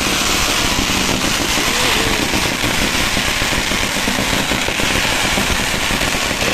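Ground fountain firework spraying sparks, giving a loud, steady rushing hiss laced with fine crackling.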